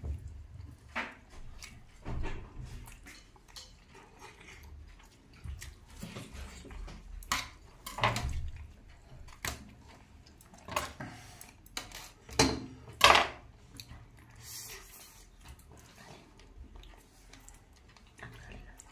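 Eating sounds: metal chopsticks clicking against a metal tray, and instant noodles being slurped and chewed. They come in scattered sharp clicks and short bursts, the loudest about thirteen seconds in.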